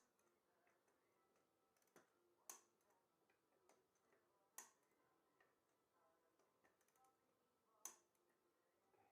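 Four faint, sharp clicks at uneven intervals: a click-type torque wrench breaking over at 44 foot-pounds as the rear wheel bolts are checked.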